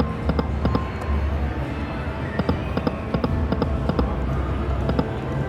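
Slot machines' electronic beeps and chimes over casino floor noise: short high blips, often in pairs, and many sharp clicks over a pulsing low hum.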